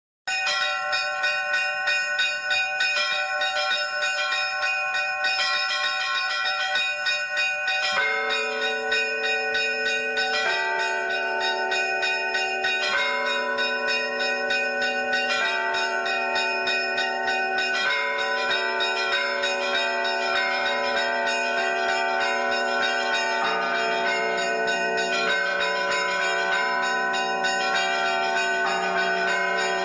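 Bells ringing in a continuous peal, the set of pitches shifting about every two and a half seconds, with deeper tones joining about eight seconds in.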